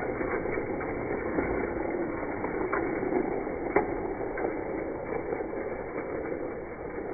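Die-cast toy cars rolling down a track, a steady rolling rumble with scattered light clicks, slowly fading. The sound is slowed down and deepened by super slow-motion playback.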